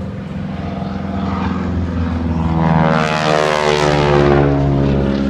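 Piston engine and propeller of an aerobatic biplane flying a vertical climb, growing louder to a peak about three seconds in, with its pitch dropping as it passes.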